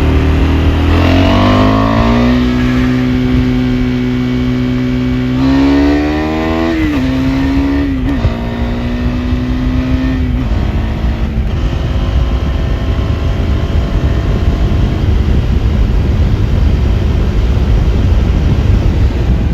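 KTM 390 Adventure's single-cylinder engine under way: the revs climb over the first two seconds, hold steady, then climb again and drop with a gear change about seven seconds in. After about ten seconds the engine note fades under a steady rushing noise.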